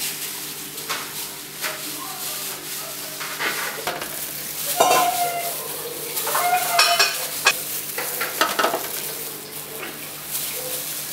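Disposable plastic gloves crinkling and rustling as red bean paste is rolled into balls between the palms, with scattered short clicks.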